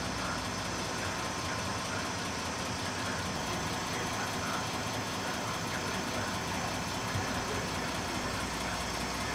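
Diesel railcar's engine idling steadily at the platform.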